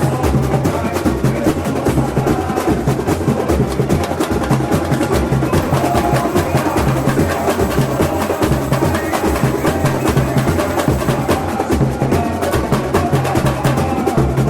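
Samba bateria playing a steady batucada groove: deep surdo bass drums keep a repeating low beat under dense, rattling snare and high drum strokes.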